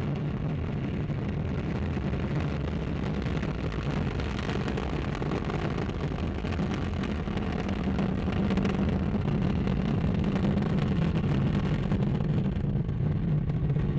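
Ariane 5 ECA rocket at liftoff, its Vulcain core engine and two solid rocket boosters firing: a continuous heavy rumble that grows a little louder after about eight seconds as the launcher climbs.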